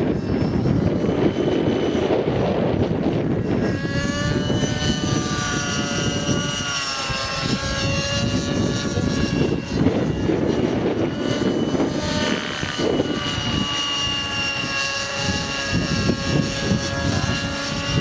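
Align T-REX 600 nitro RC helicopter in flight: its two-stroke glow engine and rotors whining, the pitch sliding up and down as it manoeuvres. A low rushing noise lies underneath and is heaviest in the first few seconds.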